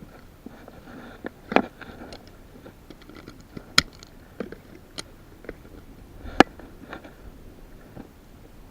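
Scattered sharp clicks and clacks of a Smith & Wesson Model 66-8 revolver being loaded and made ready, the loudest about four and six and a half seconds in.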